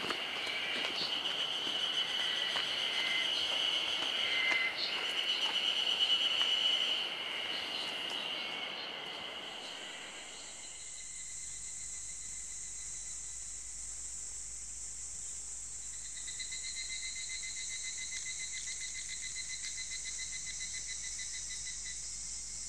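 Insects trilling in an outdoor chorus: a steady high buzz over a background hiss. About ten seconds in it changes to a higher, thinner insect drone, and a rapidly pulsing chirp joins a few seconds later.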